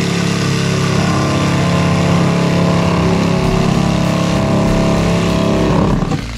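Cordless drill driving a reciprocating-saw adapter, its blade sawing through a ceiling panel. The motor starts abruptly, runs steadily, then slows and stops about six seconds in.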